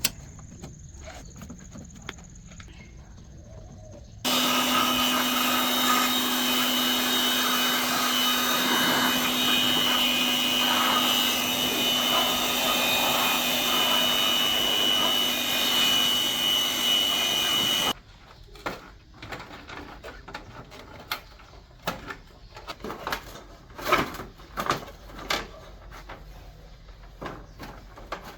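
A motor-driven tool runs steadily for about fourteen seconds with a low hum and a high whine, starting and stopping abruptly. Before and after it, light clicks and knocks of parts being handled.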